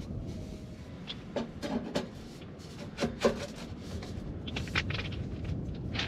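Irregular knocks, clinks and rustles as tent poles, fabric and pebbles are handled while a tent is pitched on a shingle beach, over a steady low rumble.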